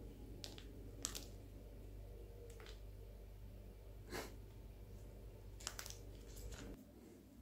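Faint crackling and soft tearing as a freshly baked cardamom-cinnamon bun (kanelbulle) is pulled apart by hand, with a few small clicks. Under it runs a low steady hum that drops away near the end.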